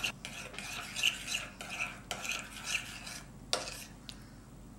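Metal spoon stirring a thick tomato paste, ketchup and yoghurt sauce in a ceramic bowl, scraping and smearing in repeated strokes about twice a second. The strokes stop about three and a half seconds in.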